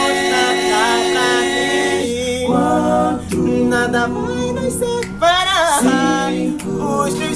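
Male vocal group singing a cappella in harmony: held chords under a lead voice that slides between notes, with short pauses between phrases about two and five seconds in.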